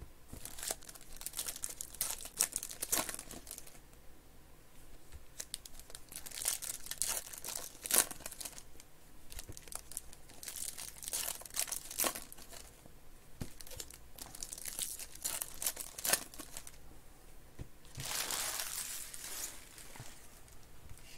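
Trading card pack wrappers crinkling and tearing open in irregular bursts as packs are unwrapped by hand, with one sharp tap about 8 seconds in.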